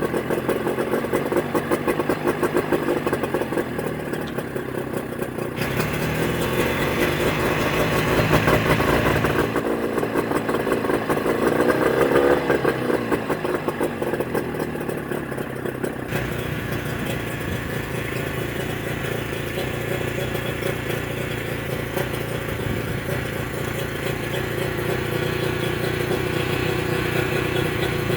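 Mercury 25 hp two-stroke outboard motor, fitted with Boyesen power reed valves, running continuously. Its speed shifts several times in the first half as the throttle cam is set for idle, then settles into a steadier run.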